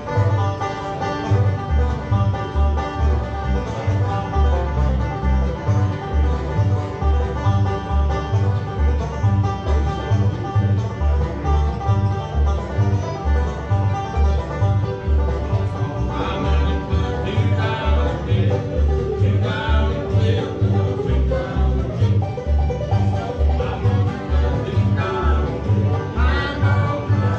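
Acoustic bluegrass jam: banjo and guitar playing an up-tempo tune over a steady bass beat, with a voice joining in singing a little past halfway.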